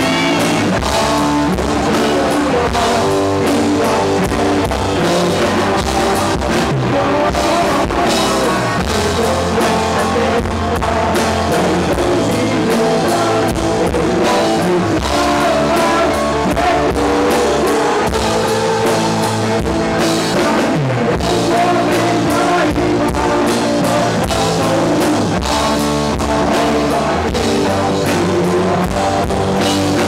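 Live rock band playing loudly: a male lead vocal sung into a microphone over electric guitars and a Tama drum kit.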